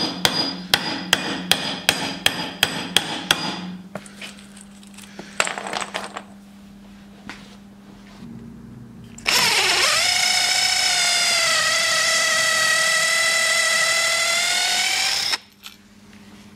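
A hammer strikes a wooden peg through a steel dowel plate in quick, even blows, about three a second, for the first few seconds. Then, about nine seconds in, a cordless drill spins up with a rising whine and runs steadily for about six seconds, boring a peg hole through a wooden window-frame joint, then stops.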